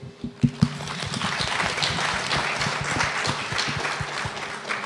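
Audience applauding: a few scattered claps first, then steady clapping that dies away near the end.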